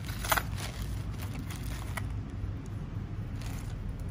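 A clear plastic bag full of small cutting tools crinkling and rustling as a hand handles it, with a few short clicks, the sharpest about a third of a second in. A steady low rumble runs underneath.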